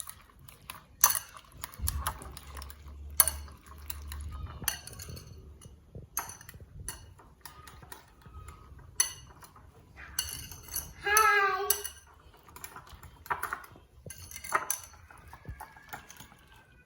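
Eggs being beaten with a metal utensil in a bowl, irregular clinks and taps against the bowl's sides. A short voice sound cuts in about two-thirds of the way through.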